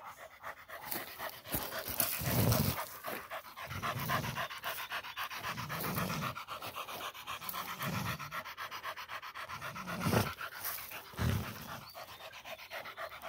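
Pit bull panting fast and steadily after catching a peccary, with a few short, low, muffled bumps.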